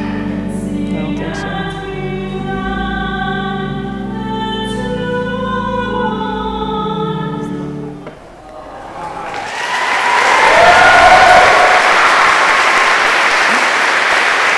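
Choir singing over held sacred music, which ends about eight seconds in. Then a congregation breaks into loud applause and cheering for the newlyweds' kiss.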